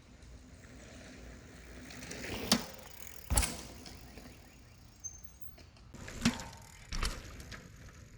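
Mountain bike being ridden over a packed-dirt jump: tyres rolling on dirt, with a few sharp knocks and a heavier thud about three seconds in.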